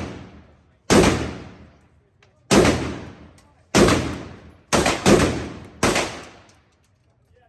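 Six shots from an AK-pattern pistol in 7.62×39 fired one at a time, roughly a second apart, with a quicker pair about five seconds in. Each sharp crack trails off into a ringing echo.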